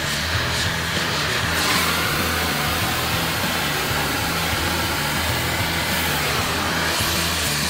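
Oxy-acetylene torch flame running with a steady hiss while it heats a steel bar red hot in a vise. The hiss is strongest in the first second and a half.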